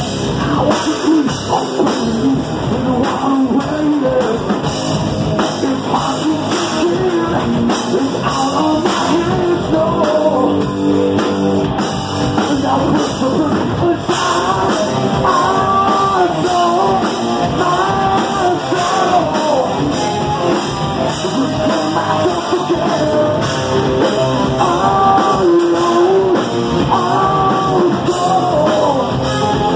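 Live hard rock band playing loud: distorted electric guitars and a drum kit, with a male singer singing over them.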